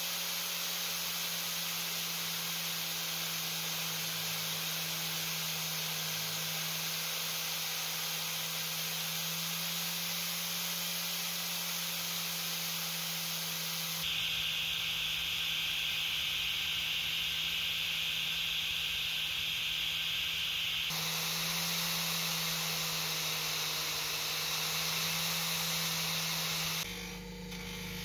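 Angle grinder running steadily with an orange polishing wheel, steel needle-nose pliers pressed against it with a steady hiss of polishing. About halfway through the hiss grows louder and higher for about seven seconds. Near the end it cuts to the quieter hum of a motor spinning a cloth buffing wheel.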